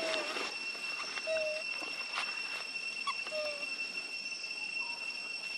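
Young long-tailed macaques giving short squeaky calls, three of them a second or two apart, over a steady high-pitched drone.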